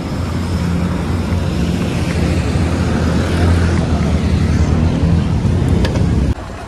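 Engine running steadily with a low drone that cuts off suddenly near the end.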